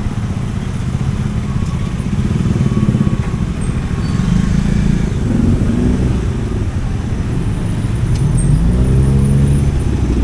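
Road traffic: motor vehicle engines running close by, with one engine's pitch rising as it speeds up near the end.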